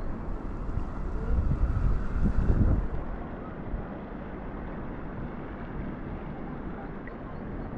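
Wind buffeting the microphone over a steady low rumble, with a stronger gust from about one and a half to three seconds in.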